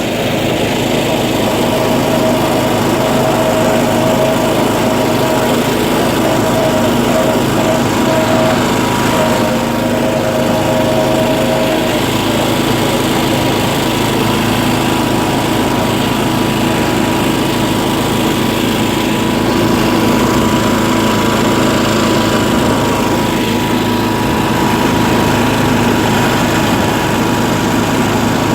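Small off-road vehicle engine running steadily at an even pitch, with no big revs.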